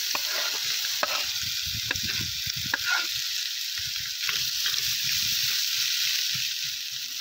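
Diced potato, onion and carrot sizzling in butter in a hot cast-iron kazan. At first the last cubes drop in off a wooden board, then a metal slotted spoon scrapes and clinks against the pot as it stirs them.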